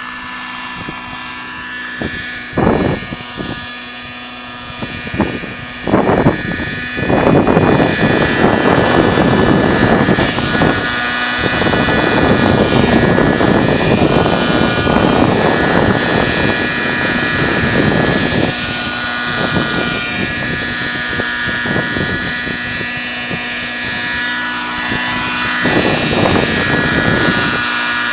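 Nitro-fuelled Raptor 50-size RC helicopter running steadily, its two-stroke glow engine and rotor making a whine that holds an even pitch. From about seven seconds in, loud gusty rushing noise covers much of it, easing off around twenty seconds, and a shorter burst comes back near the end.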